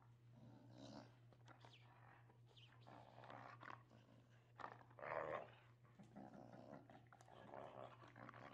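Dog growling softly in play while mouthing and tugging at a toy, loudest about five seconds in.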